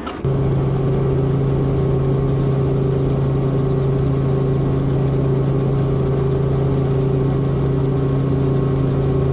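Helicopter running, heard inside the cabin: a steady engine and rotor drone with a constant low hum and a higher hum above it, starting abruptly about a quarter second in.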